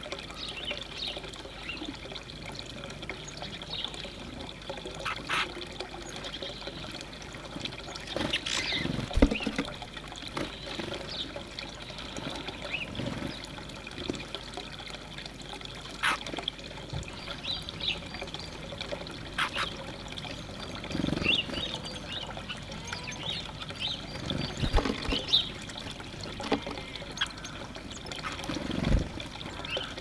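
Water trickling steadily, with scattered short chirps and calls of small birds and a few soft low thumps.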